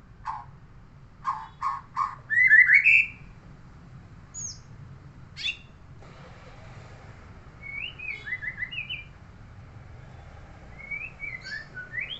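A songbird singing in separate phrases of sharp whistled notes, quick rising and falling, mixed with short clicking notes and pauses between. The loudest phrase comes about two to three seconds in; later phrases are softer.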